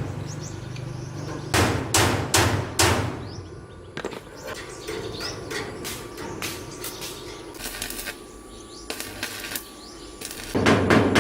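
Hammer blows in short runs: a few strikes about two seconds in and a couple more later, then a fast, loud series near the end. Birds chirp faintly in the quieter stretch between.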